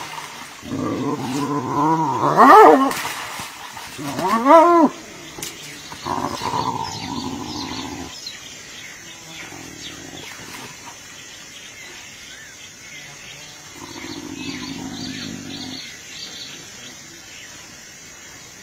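Two hyenas fighting: loud, wavering squeals and yelps in the first few seconds, one sharp rising-and-falling squeal just after four seconds, then rough growls that grow quieter, with a stretch of low growling near the end.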